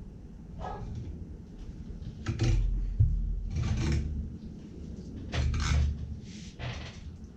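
Knife strokes and the fish being handled on a plastic cutting board during filleting of a Spanish mackerel: about five short scraping strokes, each with a dull knock.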